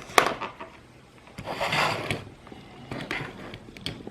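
Handling noises: a sharp click near the start, a short rustling scrape about a second and a half in, and a few more light clicks near the end.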